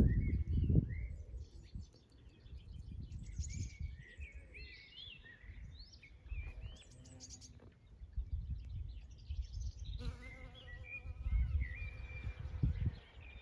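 Bumblebee buzzing at primrose flowers, its steady hum clearest near the end, while birds chirp and sing in the background over a low rumble.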